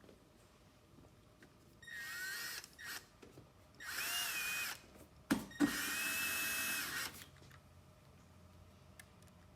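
Power drill driving screws back into a panel: about four short runs of the motor's whine, the longest near the end lasting just over a second, with a couple of sharp knocks in between as the driver is seated on a screw.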